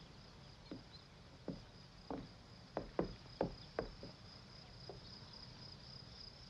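Footsteps on a wooden floor, about nine steps, the firmest ones around the middle, over a steady high chirring of night insects.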